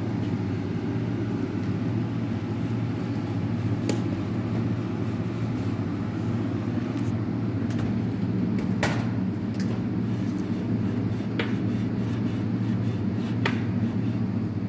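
Steady low mechanical hum, like a motor or ventilation fan running, with a few short sharp clicks scattered through it.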